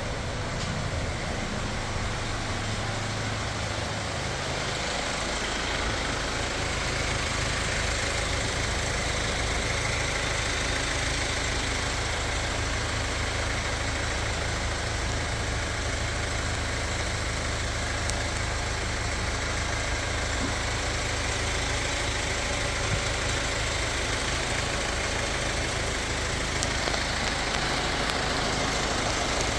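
Car engine idling steadily, a continuous even running noise with no revving.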